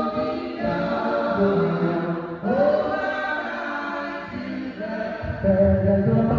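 A group of men and women singing a chant-like worship song together into microphones. A louder, deeper part comes in about five seconds in.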